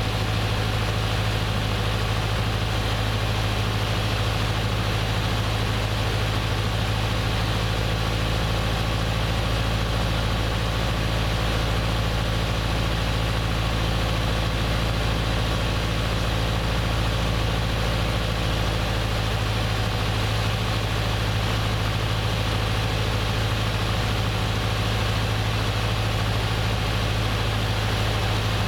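Piper Archer II's four-cylinder Lycoming O-360 engine and fixed-pitch propeller droning steadily, heard from inside the cabin, with a strong low hum and a faint hiss of airflow above it.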